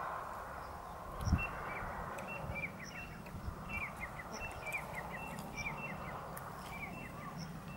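Small birds chirping in a quick run of short, falling notes over a steady outdoor background hiss, with a brief low thump about a second in.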